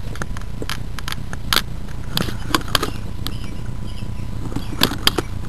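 Steady low rumble of handling noise on a gun-mounted camera, with a few sharp clicks and snaps at irregular intervals.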